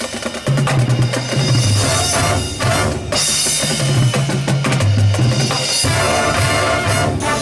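High school marching band playing a loud, percussion-heavy passage: rapid snare and bass drum strikes over a moving low bass line.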